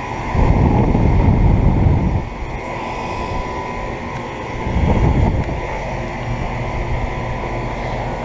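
Outdoor central air conditioner condenser units running: a steady hum with a constant whine from the fans and compressors. Wind buffets the microphone twice, from about half a second in for nearly two seconds and again around five seconds in.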